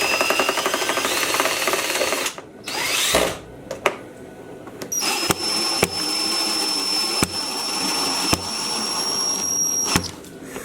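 Cordless drill driving screws, in bursts: a whine that rises in pitch for about two seconds, a short burst, then a steady high whine for about five seconds, broken by a few sharp clicks.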